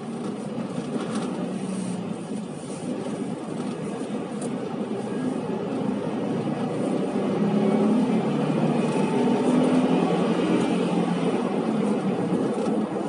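A large vehicle running close by in street traffic, its engine and road noise building and staying loud through the second half.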